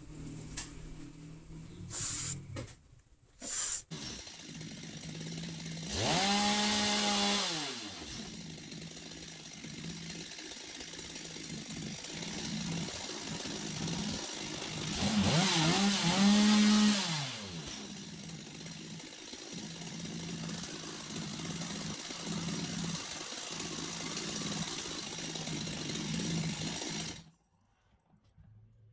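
Stihl MS250 two-stroke chainsaw engine idling, with a few short uneven bursts at the start. It is revved up twice to high speed for about two seconds each time, the pitch rising and falling back to idle, then cuts off suddenly near the end.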